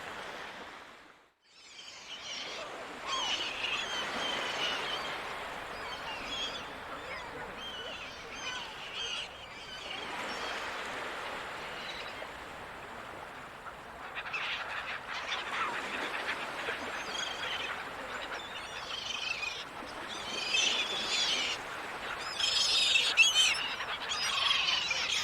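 Many gulls calling over a steady wash of the sea, after a brief dip almost to silence about a second in. The calls come thicker and louder in the second half.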